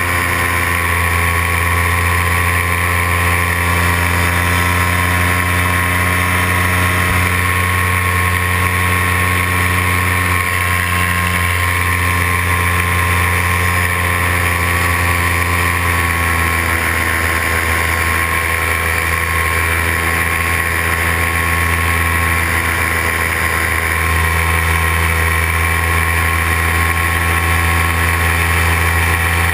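Paramotor engine and propeller running steadily in flight, a constant drone with a strong low hum.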